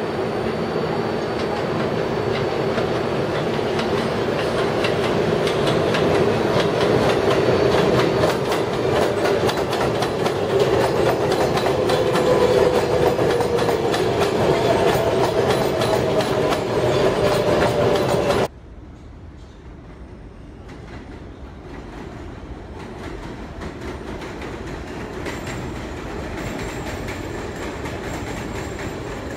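A New York City Subway R142A/R188 7 train running on elevated track, wheels clattering over the rail joints, with a whine that slowly slides in pitch. About two-thirds of the way through, the sound drops abruptly to a quieter passing of the train, which slowly grows louder.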